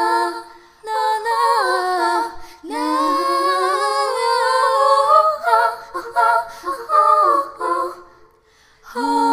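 Background song: a woman singing slowly in long held notes, with little or no accompaniment. The singing fades out briefly near the end, then comes back.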